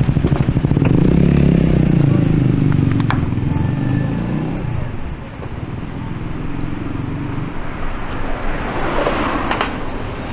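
A motor vehicle's engine running close by in street traffic, a low pulsing rumble that is loudest in the first few seconds and fades away about five seconds in, followed by quieter traffic noise.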